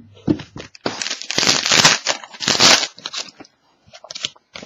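Card-pack wrapper crinkling and rustling as trading cards are handled, in a few dense bursts, loudest about two seconds in, with a few light clicks either side.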